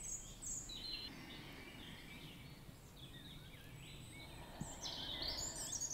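Faint birdsong: small birds chirping and twittering in short, high calls over a low, even background hiss, with a busier flurry of calls near the end.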